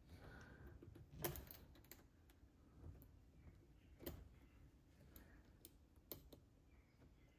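Faint, scattered clicks and ticks of a steel Allen wrench working in a wheel-hub screw of an electric skateboard, about eight in all, the loudest a little over a second in.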